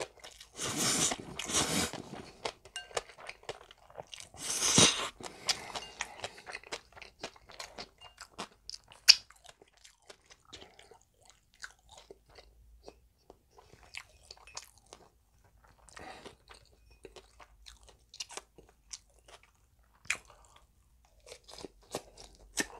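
Close-miked eating: two long, loud noodle slurps near the start. After them come many sharp crisp crunches of chewing on breaded, deep-fried pork cutlet.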